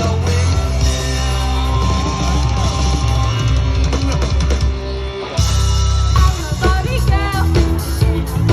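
A live band playing rock music with a singer. The music dips briefly about five seconds in, then comes back with stronger singing.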